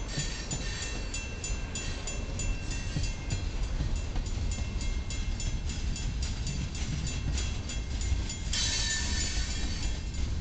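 Freight train cars rolling past, wheels clicking over the rail joints in a steady rhythm of several clicks a second, with a faint metallic ringing. A louder, brighter rush of wheel-on-rail noise comes in about eight and a half seconds in.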